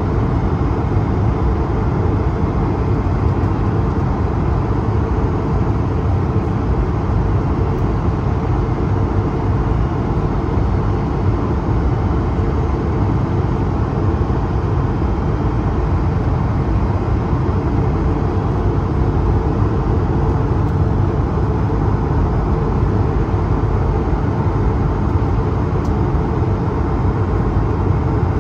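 Steady in-flight cabin noise of an Airbus A220-300: an even, low rush of airflow and engine noise heard from a window seat.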